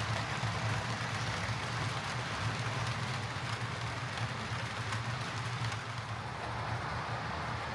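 Heljan OO gauge Class 58 model diesel locomotive running along the track: a steady motor hum with wheel and gear noise and faint clicks from the rails.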